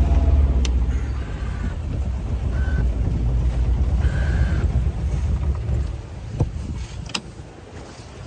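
Sailboat's auxiliary engine running, dropping in level about a second in as it is throttled back, then dying away about six seconds in as it is shut off. A few sharp clicks and brief high squeaks from handling the controls.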